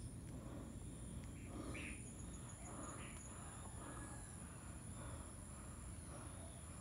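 Faint steady high-pitched insect trill, with a few faint bird chirps.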